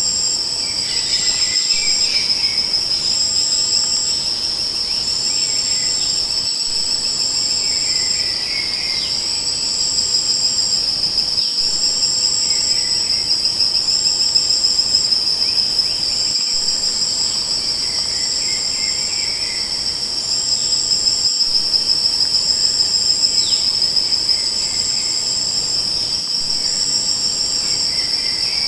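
Crickets and other insects chirring in a continuous high trill. A second, higher insect pulses in short regular phrases about once a second, and softer chirps recur every few seconds.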